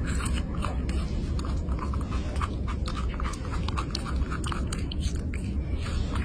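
A pet chewing and biting, making a quick, irregular run of short crunching clicks.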